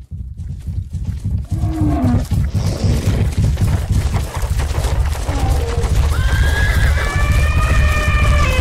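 Animal sound effects: a loud, dense low rumble throughout, with a few short calls early on. From about six seconds in comes one long, high call of several stacked tones lasting about three seconds.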